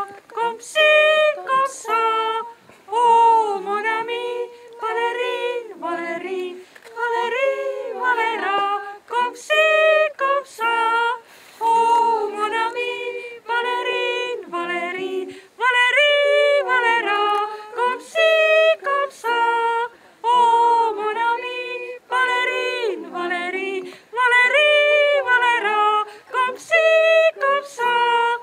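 Women's voices singing unaccompanied, a run of short wordless vocal phrases with pitch glides up and down.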